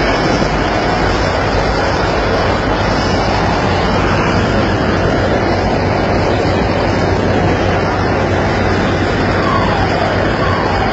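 Steady, loud rush of wind and sea on a vessel's open deck, with the low hum of the ship's engines underneath. A few short falling tones sound near the end.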